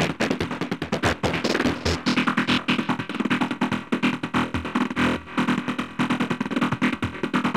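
Fast psytrance-style synth sequence from Xfer Serum, a rapid run of short staccato notes with oscillator A frequency-modulated by the sub oscillator. It cuts off suddenly at the end.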